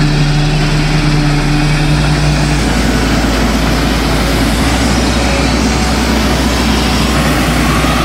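Laverda AL Quattro Evo combine harvester at work cutting wheat, its diesel engine and threshing gear running steadily. The low hum changes pitch abruptly about two and a half seconds in.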